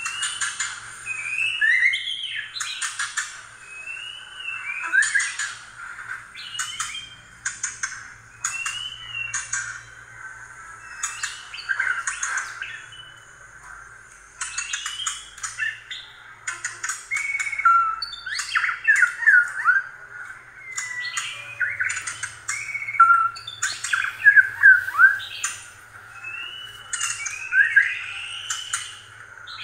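Mice squeaking and chirping over corn: many short, high squeaks that slide up or down in pitch, from several animals at once, with quick clicking between them from their gnawing and scrabbling.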